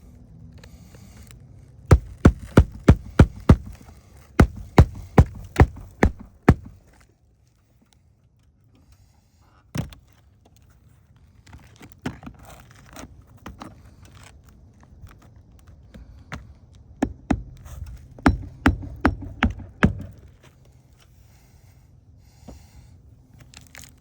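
Roofing hatchet driving nails into asphalt shingles: three runs of rapid hammer strikes, about three a second, with a single strike and lighter taps in between.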